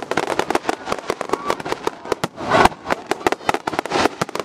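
Fireworks display: aerial shells bursting and crackling stars going off in a rapid, overlapping string of sharp bangs and crackles, densest about two and a half seconds in.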